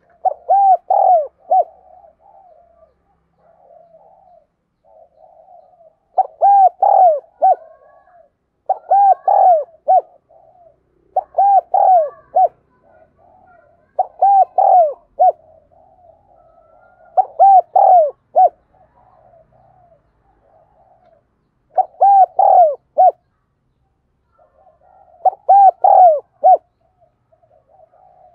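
Spotted dove cooing: about eight loud phrases, each of three or four arching coo notes, come every few seconds. Softer, lower murmured cooing fills the gaps between the phrases.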